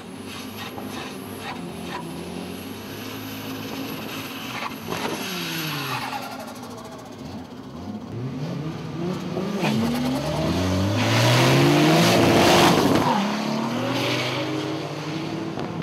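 Drag-racing cars at the strip: a Nissan 240SX's engine revving through a smoky burnout with tire squeal, then cars launching and accelerating hard, engine pitch climbing and dropping back with each gear change. The loudest part comes about twelve seconds in as the cars pull away.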